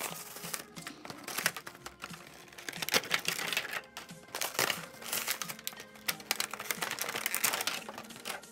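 Toy packaging being torn open by hand: plastic blister and cardboard of a Bakugan starter pack crinkling and rustling, with many irregular clicks and snaps. Background music plays faintly underneath.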